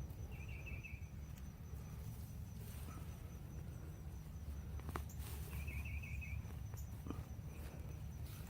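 Outdoor garden ambience: a bird's short trilled call near the start, repeated about five seconds later, over a faint steady high insect hum and a low rumble. A few light clicks come from hands working in the soil.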